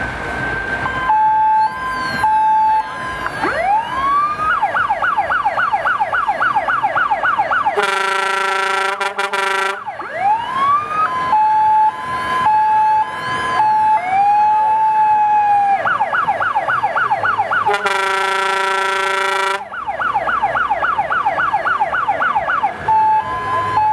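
Electronic siren (Zura PS-100L) of a Ural 4320 fire engine on a signal test, cycling through its patterns: a two-tone hi-lo, a rising and falling wail, and a fast yelp. Twice it is cut by a loud horn blast of about two seconds.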